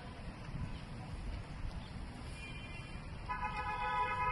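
Low rumble of wind buffeting the microphone, then about three seconds in a vehicle horn starts and holds a steady, unbroken tone.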